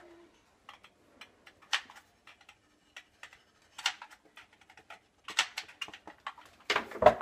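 Hot glue gun's trigger clicking irregularly as glue is squeezed onto a scrap strip of wood, with a few louder knocks near the end.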